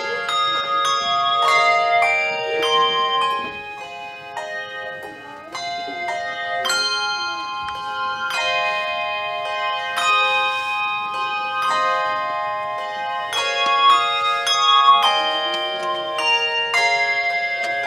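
Handbell choir playing a tune: many tuned brass handbells struck in turn and in chords, each left to ring on. The playing drops softer about four seconds in and fills out again a couple of seconds later.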